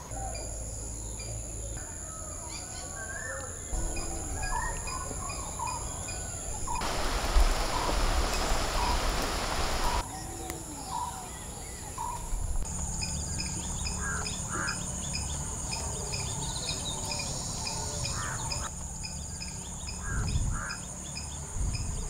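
Garden ambience of birds chirping over a steady high-pitched insect drone. About seven seconds in there is a rustling hiss that lasts about three seconds.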